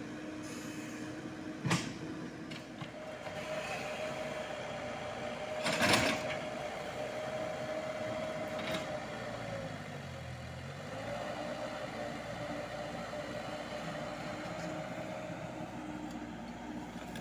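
Komatsu PC78US mini excavator's diesel engine running steadily with a high whine as it digs, its pitch sagging and recovering about ten seconds in. Two sharp knocks are heard, the louder about six seconds in.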